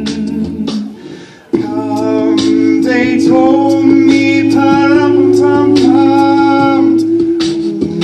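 Mixed male and female voices singing a cappella in harmony: a held low chord under a higher melody line, with a brief pause in the singing about a second and a half in.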